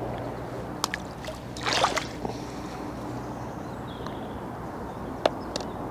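A short splash of water about two seconds in, over a steady low hum, with a couple of sharp clicks.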